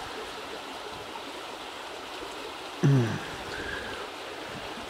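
A steady, even rush of running water, like a creek flowing beneath the bridge. About three seconds in, a man's voice briefly makes one short sound over it.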